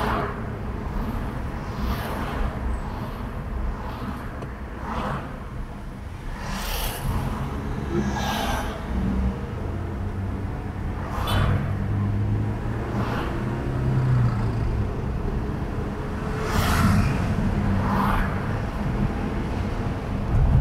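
Car driving in city traffic: a steady engine and road rumble, with brief rushes of passing traffic every few seconds.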